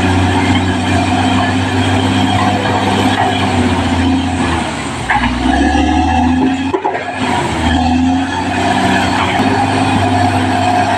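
Caterpillar D6R XL bulldozer's diesel engine running steadily. Near the middle its pitch drops for a couple of seconds and the sound breaks off briefly, then it comes back up to its steady note.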